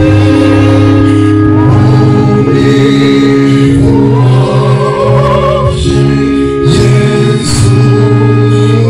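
A mixed group of men and women singing a slow gospel song together through microphones and a sound system, with long held notes under the voices.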